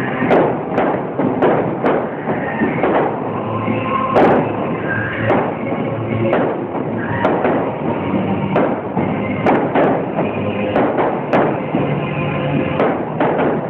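Fireworks display: shells bursting in an uneven string of bangs, about two a second, with music playing along with the show.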